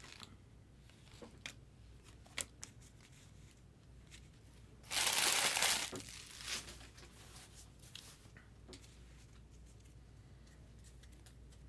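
A trading-card pack wrapper being torn open, a loud rush of noise about five seconds in lasting about a second, with light clicks and rustles of cards being handled before and after.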